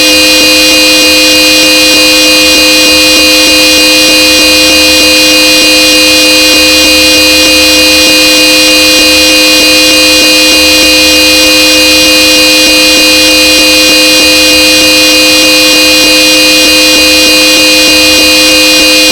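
Old 'Supertone' twin-tone car horn sounding one long, loud, unbroken blast, two steady notes held together without a change in pitch.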